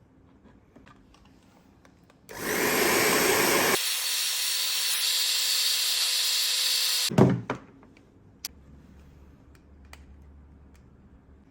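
A small power tool runs steadily for about five seconds, then stops with a sharp knock; faint clicks follow.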